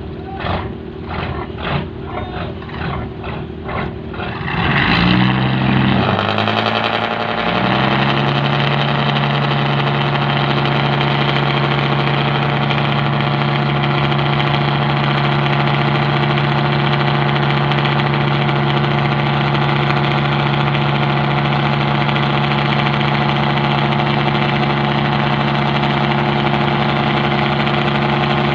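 Fishing boat's diesel engine: its note shifts and changes pitch around five to eight seconds in, then settles into a steady, even running hum.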